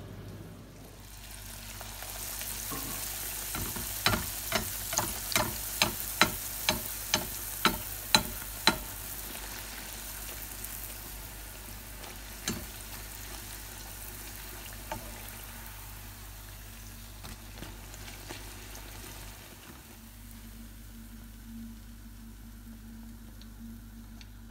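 Bhatura dough deep-frying in hot oil in a shallow pan, a steady sizzle. From about four seconds in there is a run of about a dozen sharp taps, roughly two a second, then two more single taps later. The sizzle eases off near the end.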